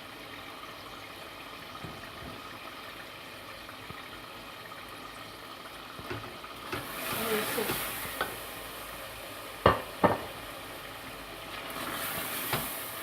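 Chicken and tomato masala with freshly added red chilli and turmeric frying in a pan: a steady sizzle that grows louder about seven seconds in as it is stirred, the masala being bhuna'd (fried down). A few sharp clacks of the spoon against the pan, two close together about ten seconds in.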